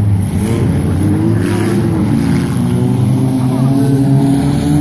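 Engines of several compact-class dirt-track race cars running at once, their pitch rising and falling as the cars accelerate and back off around the oval.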